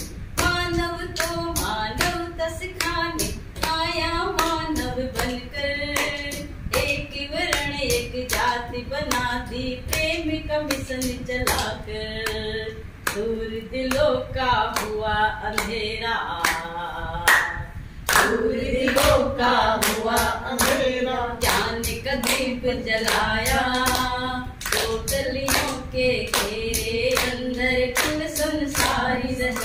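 A woman singing a Hindi devotional bhajan in praise of the Satguru, with hands clapping along to a steady beat.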